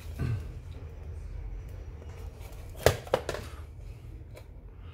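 Handling noise: two sharp clicks about a third of a second apart, a little past the middle, over a steady low hum.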